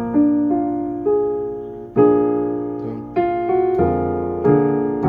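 Keyboard piano chords in a turnaround progression in F sharp, starting on the B-flat dominant chord: about seven chords struck and left to ring and die away, with a deep bass note coming in near the end.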